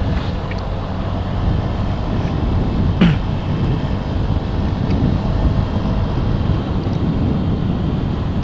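Motorcycle engine running steadily while riding, with wind rushing over the microphone. About three seconds in there is one short sound sliding down in pitch.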